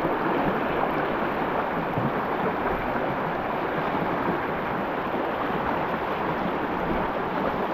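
River current rushing steadily over a shallow, rippling stretch: a continuous even wash of flowing water.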